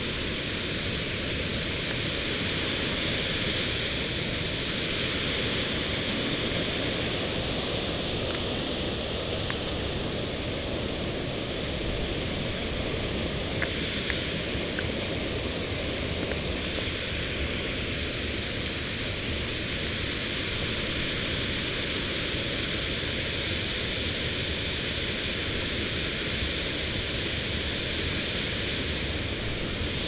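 Small waterfalls and a fast stream pouring over rock: a steady rush of falling water.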